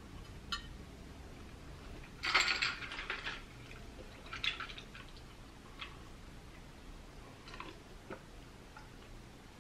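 Ice cubes clinking and rattling in a drinking glass as it is lifted and drunk from: a clatter of about a second a couple of seconds in, a shorter one a couple of seconds later, then a few single small clicks.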